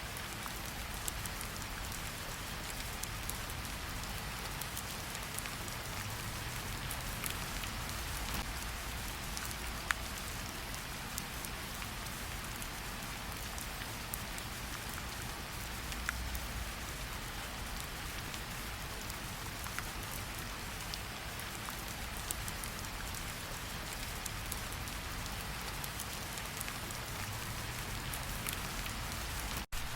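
Steady rain, with scattered single drops ticking sharply over the even hiss and a low rumble underneath. It cuts out for an instant near the end.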